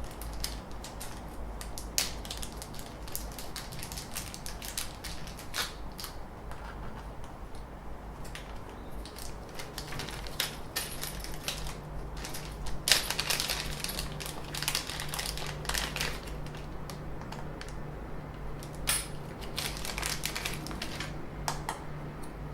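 Irregular clicks and light knocks of small printer parts and screws being handled during assembly, with a steady low hum starting about halfway through.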